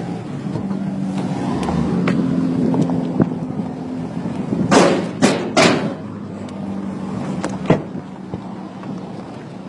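A car's engine hums steadily as its tyres roll slowly over loose gravel and dirt, with small scattered crunches of stones. About five seconds in come a few loud, short, noisy bursts.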